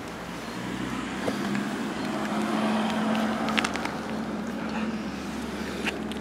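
A motor vehicle's engine hum with road noise, growing louder to a peak about three seconds in and then easing off, as a car passing on the street would. A few brief clicks come near the middle and near the end.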